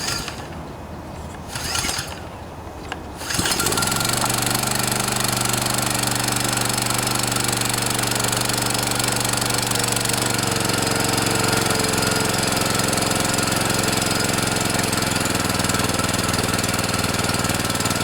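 Kawasaki engine of a DR walk-behind trimmer being started: a short burst of cranking about two seconds in, then the engine catches a little over three seconds in and runs steadily and smoothly.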